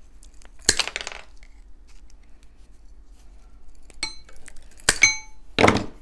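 Sharp snap well under a second in as wooden chopsticks are cut with steel pliers, then metallic clinks with a short ring around four and five seconds in as the pliers are set down among other metal tools.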